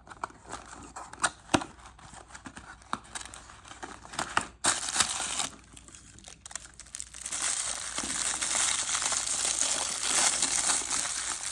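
Crinkling plastic toy packaging being handled and opened. There are scattered crackles and clicks at first, then steady crinkling from about seven seconds in.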